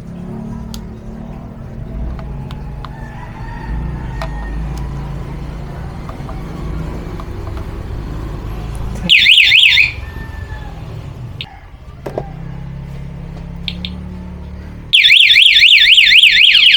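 Motorcycle alarm siren warbling rapidly: a short loud burst about nine seconds in, then a longer continuous warble starting near the end, over a low steady hum. The alarm is being tested after its power supply was reconnected.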